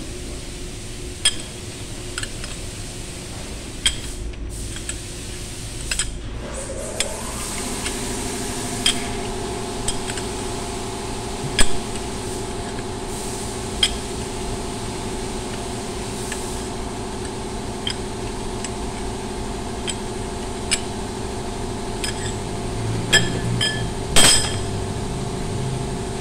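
Sharp metallic clinks every second or two as a socket and long bar work the wheel nuts on a forklift wheel hub. A steady machine hum comes in about a quarter of the way through, rising briefly in pitch and then holding level.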